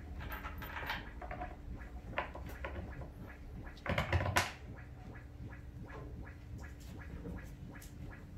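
Hands handling hardware on a wooden subwoofer cabinet: scattered small clicks and scrapes, with a louder knock and scrape about four seconds in, over a steady low hum.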